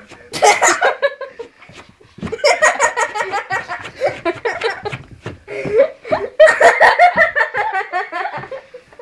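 People laughing hard in three long fits: a short burst at the start, then from about two to five seconds and again from about six to eight and a half seconds.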